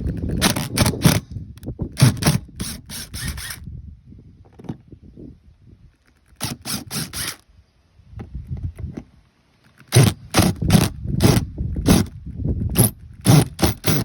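Screwdriver working the mounting screws of an old RV fresh-water inlet, in bursts of short, sharp scraping strokes with pauses between, as if the bit is slipping in a screw head that may be stripped.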